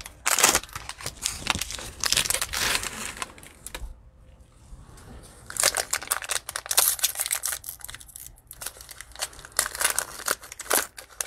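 Cellophane wrapper of a trading-card cello pack crinkling in gloved hands as it is handled, then pulled open. The crackles go irregularly, with a quieter lull about four to five seconds in.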